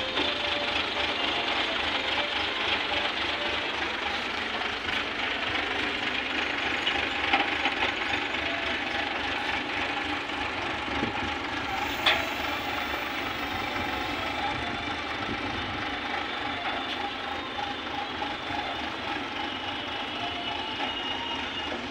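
Diesel engine of an ACE F160 pick-and-carry hydra crane running steadily under load while it lifts and carries a suspended truck body, with a sharp knock about twelve seconds in.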